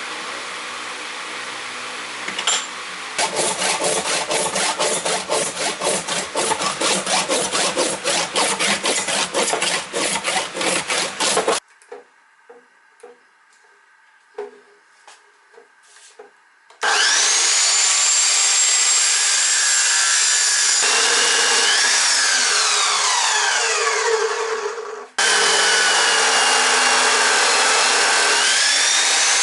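A handsaw cutting through a lawn bowl's dense plastic in quick, even back-and-forth strokes for several seconds. After a short pause with a few light knocks, an angle grinder cuts into the bowl, its whine sliding down and back up in pitch as it meets the load.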